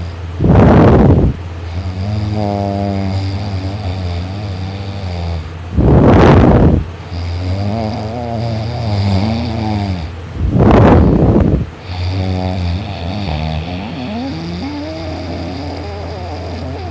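A man snoring heavily in his sleep: three loud snores about five seconds apart, with wavering, pitched heavy breathing between them.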